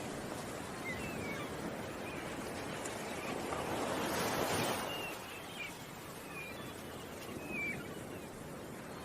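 Ocean waves washing ashore, one wave swelling and breaking about four or five seconds in, with short high bird chirps repeating over the surf.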